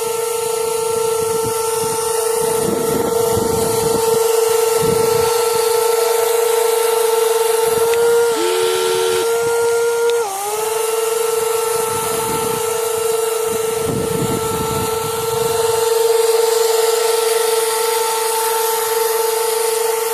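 Electric drive motors of a WLtoys 16800 metal RC excavator running with a steady high whine that dips in pitch briefly about eight and ten seconds in, as the load changes, with patches of lower, rougher grinding noise from the machine working.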